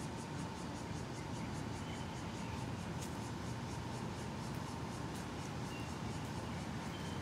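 Cicadas chirping in a steady pulsing rhythm, about five pulses a second, over a low steady rumble.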